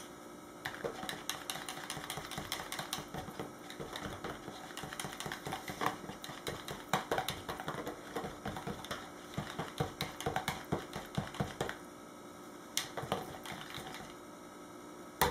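A small utensil stirring coloured cold process soap batter in a plastic measuring pitcher, rapid clicking and tapping against the pitcher's sides. The clicking stops about twelve seconds in, leaving only a few scattered taps.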